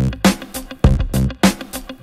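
Background music: a funky electronic track with a steady beat, bass and plucked guitar-like notes.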